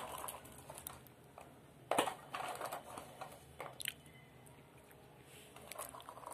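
A baby's hands rummaging through pieces of fried ghughute in a metal pan: scattered rustling and crunching, with a few sharper knocks, the loudest about two seconds in.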